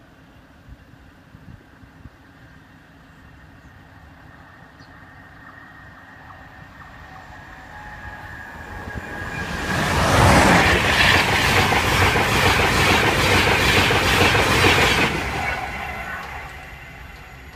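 Train passing at speed through a level crossing. It grows over several seconds, then a loud rush of wheels on rails with a regular clickety-clack for about five seconds, and fades as it goes.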